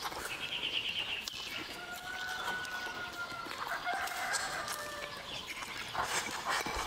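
A rooster crowing: a quick run of clucks, then one long held call of about two seconds. Near the end, mouth noises of someone eating a big mouthful of food.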